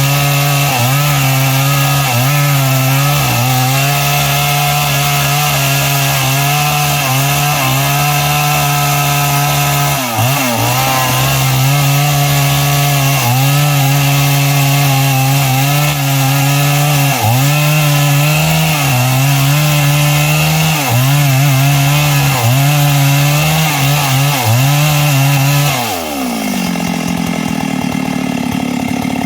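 Stihl MS382 two-stroke chainsaw with a 24-inch bar at full throttle, cutting through a large log, its pitch dipping briefly every second or so as the chain bites. Near the end the throttle is released and the engine winds down to idle.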